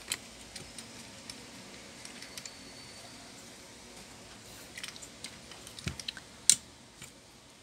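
Scattered small plastic and metal clicks and taps as a CPU heatsink fan is pressed onto a desktop motherboard, with a quick run of clicks about five seconds in and one sharp click near the end.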